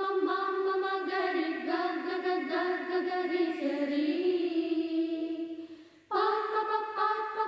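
Background music with singing voices. It fades out near the six-second mark, and a new stretch of music starts abruptly right after.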